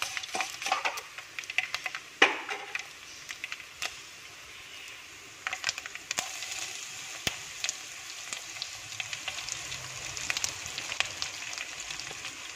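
Coconut oil sizzling in a steel pan as rice, dried red chillies and coconut pieces fry, with occasional sharp crackles. A metal spoon scrapes and stirs in the first second or two, and the chopped raw jackfruit is tipped into the hot oil later on.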